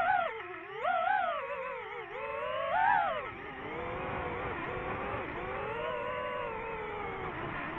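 DJI FPV drone's motors whining, the pitch swinging up and down with the throttle: surges near the start, about a second in and about three seconds in, then a steadier, lower hum.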